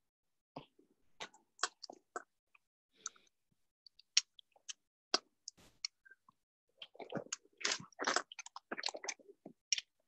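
Rustling and crackling of leaves and branches brushing against a climber and his gear as he descends on a rope through understory bushes: scattered short rustles and clicks, growing denser in the last three seconds.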